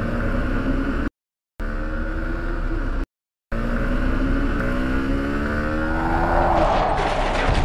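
Motorcycle engine accelerating, its pitch climbing steadily. The sound cuts out abruptly twice, for about half a second each time. Near the end a rising rush of noise swells over it.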